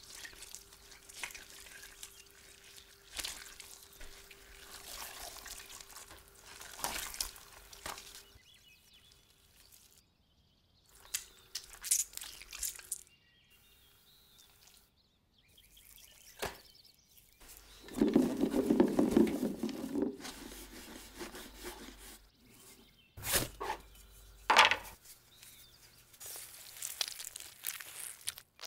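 Close-up food-preparation sounds in short separate takes: scattered clicks and knocks, with a louder dull burst about two-thirds through. Near the end, orange halves are squeezed by hand and the juice drips into a metal strainer.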